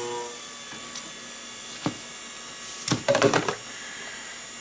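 A flat-wheel shear sharpening machine's hum dies away in the first half-second as its spinning wheel is stopped by hand. A single click comes about two seconds in, and a short clatter of clicks and knocks about a second later as the shear in its holding jig is handled.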